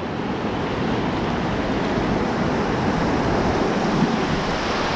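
Rushing white water of a river weir as an open canoe runs down its face, a steady rush that grows slowly louder.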